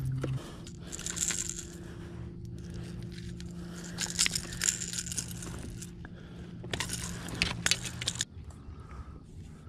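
A steady motor hum that steps up in pitch just after the start and cuts off near the end, with several bursts of crackling and scraping over it.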